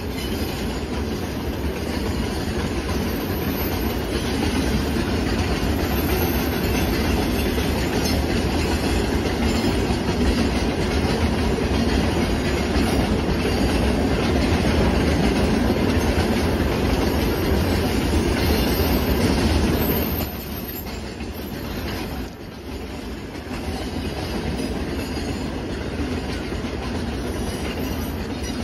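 A Lake Superior & Ishpeming ore train's hopper cars rolling past, steel wheels running over the rails in a steady, loud clatter. It dips quieter about twenty seconds in, then carries on.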